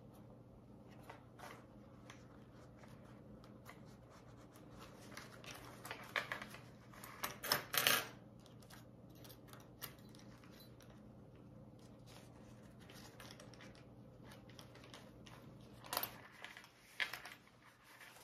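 Hands handling a metal bag connector and tape on a bag panel: scattered small clicks and rustles, loudest about halfway through and again near the end, over a steady low hum.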